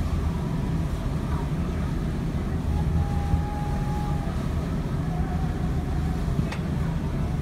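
Steady low drone of engines and the wash of the sea heard from the deck of a large ferry under way, with a fleet of motorboats running close alongside in its wake. A faint thin tone sounds for about two seconds midway through, and there is a single sharp click near the end.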